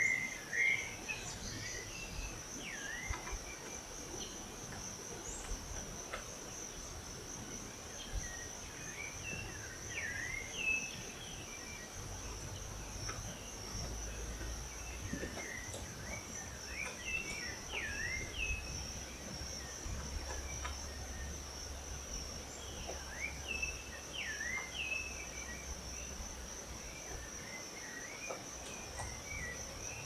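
A steady, high-pitched drone of insects, with short runs of chirping bird calls every few seconds.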